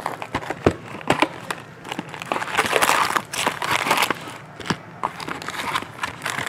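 Foil card-pack wrappers crinkling and rustling as packs are handled and stacked, with scattered light clicks and taps; the crinkling is thickest in the middle.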